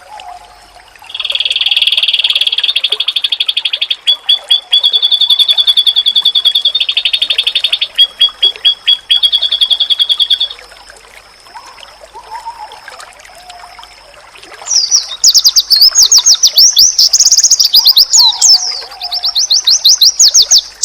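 Songbird training recording of white-eyes (pleci): a long, very fast trill on one high pitch, broken off and restarted a few times, then after a pause of a few seconds a rapid, varied high twittering song. A few faint lower chirps sound in between.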